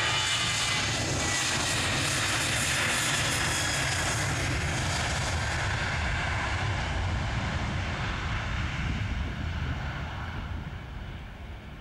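Boeing 737-800's twin CFM56-7B turbofans at takeoff thrust as the jet rolls past on its takeoff run and lifts off: a loud jet roar with a high whine on top, fading over the last few seconds as the aircraft pulls away.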